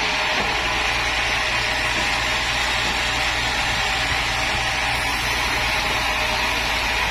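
Woodworking machinery running steadily: a continuous mechanical hiss and hum with no separate cuts or knocks standing out.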